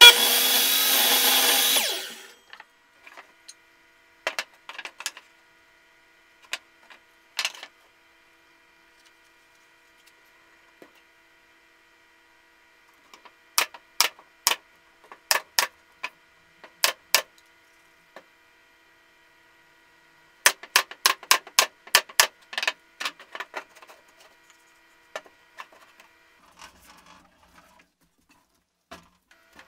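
Stanley miter saw cutting through a stack of plywood strips, the loudest sound, stopping about two seconds in. Later, a pneumatic nailer fires sharp shots into the plywood in two quick runs of about eight to ten shots each, with faint knocks of handling between.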